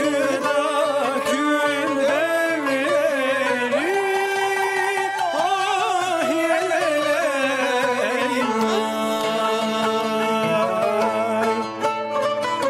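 Turkish folk song (türkü) in makam Uşşak played by a small traditional ensemble: a bowed kemençe carries a wavering, ornamented melody over plucked strings. About nine seconds in, the melody settles into steadier held notes.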